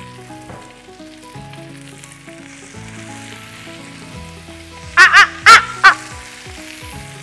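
Chicken pieces sizzling skin-side down in a hot, lightly oiled grill pan over a high gas flame, the skin searing. About five seconds in, a short loud laugh of four quick bursts cuts over the sizzle.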